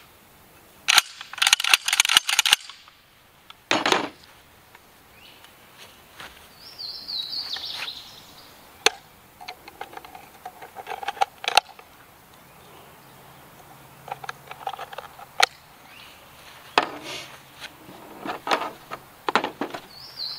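Clicks and clacks of an AR-12 semi-auto 12-gauge shotgun being handled and loaded, with shotshells being pushed home: a quick run of clicks about a second in, one sharp click near four seconds, then scattered single clicks.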